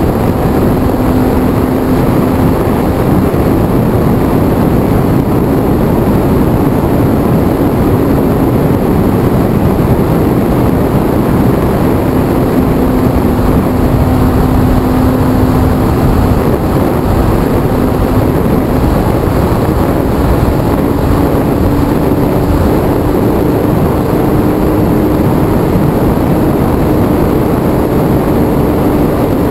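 HobbyZone Super Cub RC airplane's electric motor and propeller running steadily in flight, heard from a camera mounted on the plane over a loud, steady rush of noise. The motor's hum steps up slightly in pitch about two-thirds of the way through.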